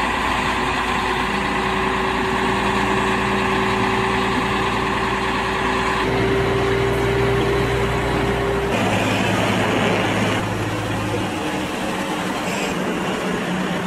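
Heavy diesel truck engine running at low revs as the tractor unit reverses slowly with its low-bed semitrailer. The engine note changes abruptly a few times.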